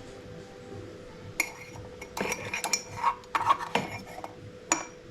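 Kitchen utensils clinking and clattering against dishes and a pan: a run of sharp clinks and scrapes starting about a second and a half in, with one last clink near the end.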